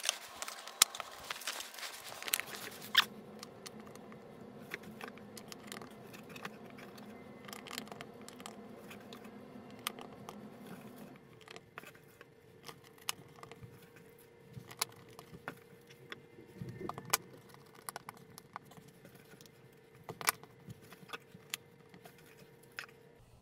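Small pieces of cut stained glass clicking and clinking against one another as mosaic sections are handled and laid down. The clicks come thick in the first few seconds, then turn sparse and scattered.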